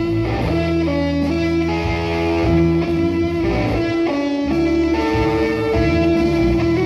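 Band playing an instrumental passage led by electric guitar, with guitar chords and bass underneath.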